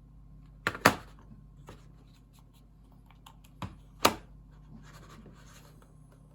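Sharp plastic clicks of computer controls being pressed: two pairs, about a second in and near four seconds, with a few faint taps between.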